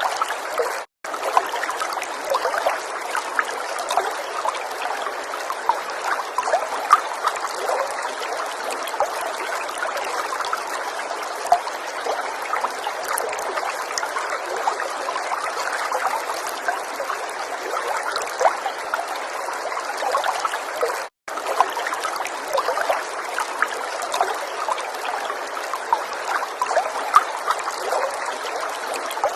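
Water falling and trickling in a steady splashing patter, full of small drips and splashes. It cuts out for an instant twice: about a second in and again about two-thirds of the way through.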